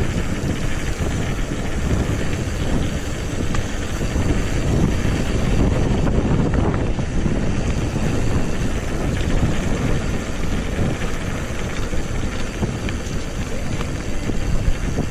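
Steady wind rush buffeting a GoPro 5 action camera's microphone while a mountain bike is ridden, mixed with the rumble of its tyres rolling on the road.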